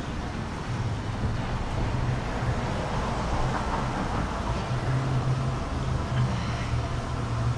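Outdoor street background: a steady low rumble of passing traffic with wind on the microphone.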